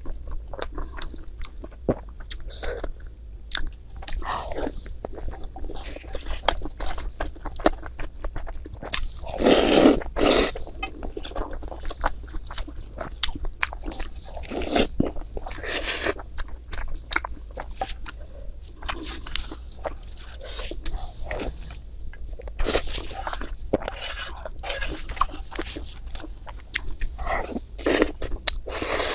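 Close-miked eating: mouth clicks, smacks and crunchy bites while chewing noodles and rice. There is a louder burst of mouth noise about ten seconds in.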